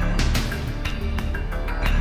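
Background music with a steady driving beat.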